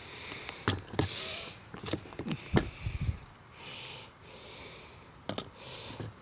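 Knocks and clicks of a Savage Model 7H .22 semi-automatic rifle being handled. The loudest knock comes about two and a half seconds in. Crickets chirp steadily behind it.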